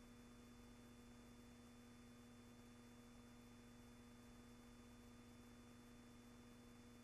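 Near silence: a faint, steady hum and hiss with no sound of the boats or the water.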